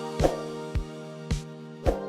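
Background music: held chords over a steady drum beat about twice a second.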